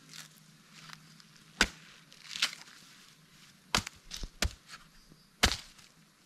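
Machete chopping into the husk of a green young coconut (buko) to open it: about half a dozen sharp whacks at uneven intervals, three or four of them in quick succession around the middle.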